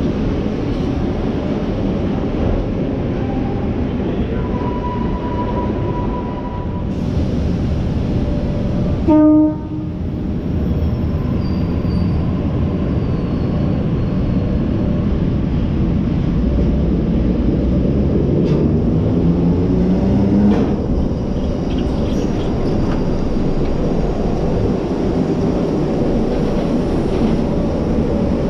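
Preserved 1927 Sydney single-deck electric train, a "red rattler", running through an underground station with a steady rumble of wheels and running gear. About a third of the way in comes a short horn toot, the loudest moment. Later a whine rises in pitch as the train comes along the platform and cuts off suddenly.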